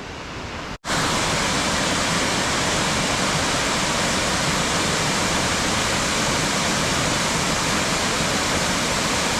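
Steady, loud rush of water pouring over Kravica Waterfall, an even noise with no individual splashes. It cuts in abruptly about a second in.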